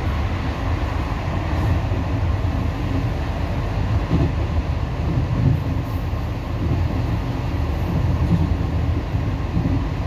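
A moving passenger train heard from on board: a steady, low running noise of the carriage underway, with no distinct rhythm of wheel clicks.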